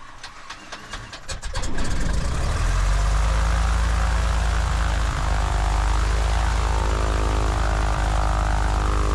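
A Cessna 180's propeller engine being started: the starter cranks it over in rapid, even chugs for about a second and a half, then it catches and settles into a steady, loud run.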